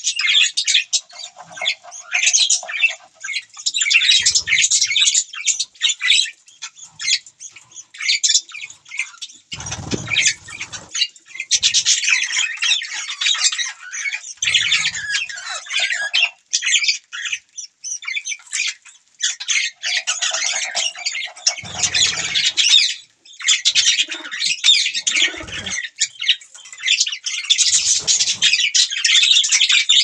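Flock of budgerigars chattering and chirping busily in quick, overlapping high-pitched calls, with a few brief low thuds.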